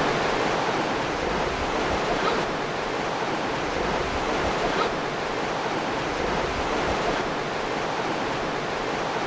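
Fast-running river water rushing over rocks: a steady, even hiss of flowing water.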